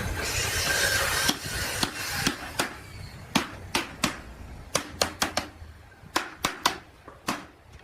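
About a second of hiss, then a run of sharp, irregular knocks, a few a second, coming closer together near the end.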